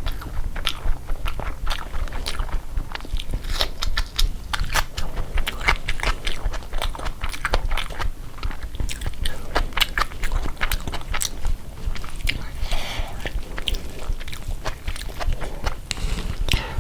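Close-miked eating: chewing and mouth clicks, with many short, sharp, wet smacks as food is bitten and chewed.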